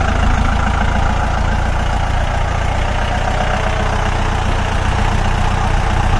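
Mahindra 4x4 jeep engine idling steadily, with no revving.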